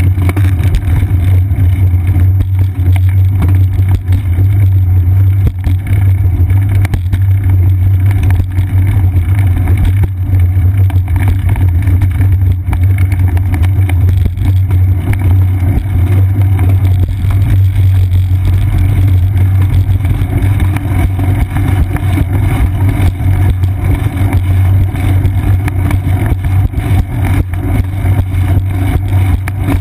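Wind buffeting and ride vibration picked up by a seat-post-mounted GoPro Hero 2 on a moving bicycle: a loud, steady low rumble with a constant rapid flutter.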